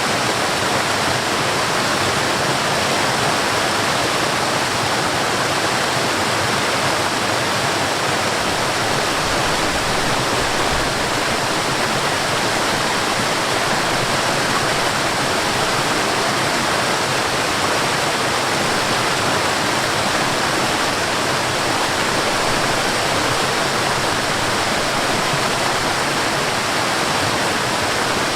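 Stream water flowing over a small waterfall: a steady, even rush of water with no break.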